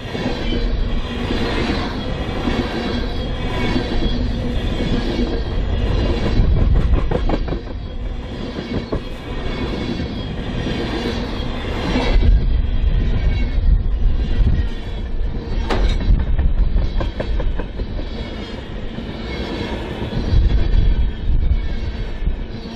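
Tank cars of a unit oil train rolling past, with a continuous rumble and rattle of wheels and trucks, a thin high wheel squeal, and occasional sharp clacks, the clearest about 12 and 16 seconds in.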